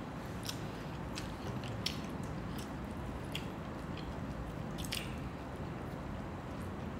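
Close-miked eating sounds from two people eating fried fish and rice with their hands: chewing with scattered small wet mouth clicks and smacks.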